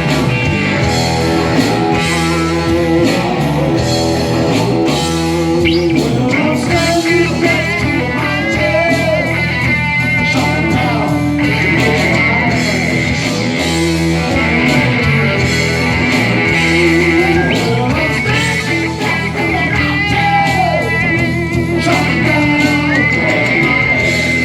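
Live rock band playing, with electric guitar to the fore and a voice singing.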